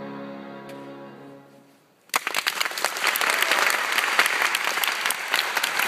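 The final chord of a piano, violin and cello trio dies away over about two seconds, then applause breaks out suddenly and carries on.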